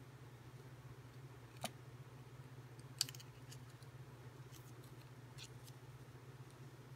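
Faint clicks and light ticks of small paper and fabric pieces being handled and pressed together by hand, the sharpest click about three seconds in, over a steady low hum.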